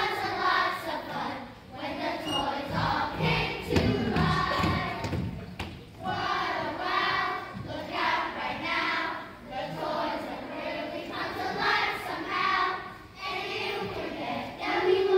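A group of children singing together as a choir.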